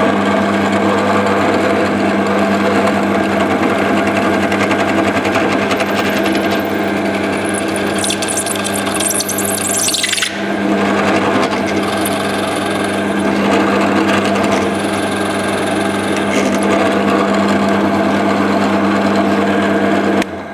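Pillar drill running with a Famag Bormax Forstner bit boring into a sloped face of flamed maple: a steady motor hum under the scraping of the cutting, easing briefly about halfway through. It cuts off suddenly near the end.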